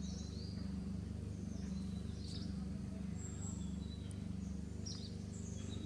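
Short, high bird chirps here and there over a steady low rumble.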